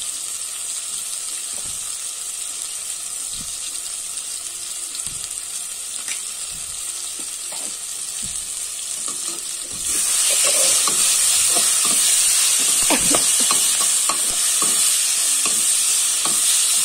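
Chopped vegetables sizzling steadily in a kadhai. About ten seconds in the sizzle grows louder as a spatula starts stirring, with scraping and clicking against the pan.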